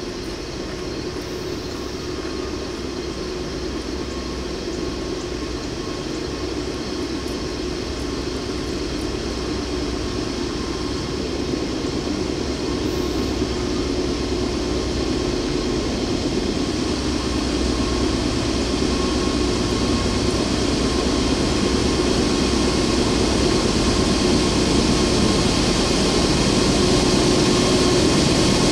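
Diesel locomotive engines of a heavy coal train working upgrade under load, a steady droning hum that grows louder as the train approaches, still out of sight.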